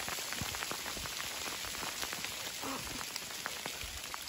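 Hail falling, a dense patter of many small sharp ticks as the hailstones strike the ground and leaves.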